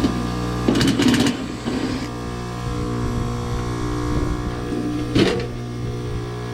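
Trane outdoor condensing unit running with a steady electrical hum, broken by short clattering rattles about a second in and again around five seconds in.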